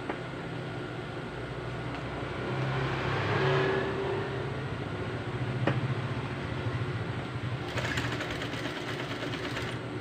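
JUKI industrial sewing machine running as it stitches the two ends of an elastic band together: a steady motor hum that swells and rises in pitch about three seconds in, then settles. A quick clatter of clicks near the end.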